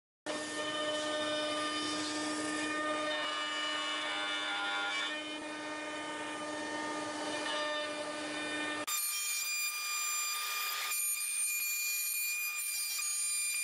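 CNC router spindle running steadily with a whine as the end mill cuts the outline of a wooden part. About nine seconds in the sound changes abruptly to a thinner, higher whine.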